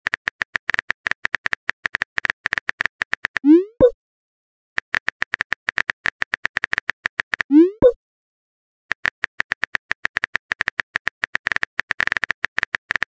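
Phone-keyboard typing sound effect: three runs of rapid clicks. The first two runs each end in a short rising pop, the sent-message sound.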